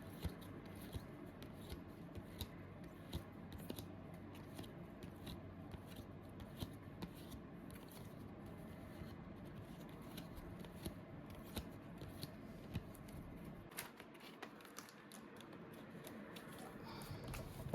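Trading card packs and cards being handled by hand: irregular crisp clicks and rustles from pack wrappers and cards, over a low steady hum.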